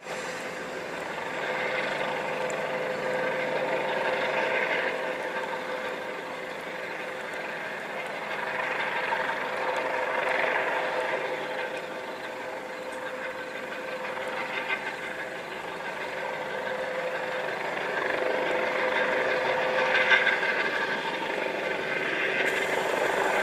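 Steady engine drone with a held humming tone, its hiss swelling and easing every several seconds.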